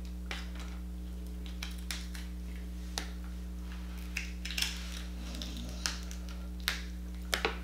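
Cooked crab-leg shell being cracked and picked apart by hand: a scatter of short, sharp cracks and snaps with a little crunching, over a steady low hum.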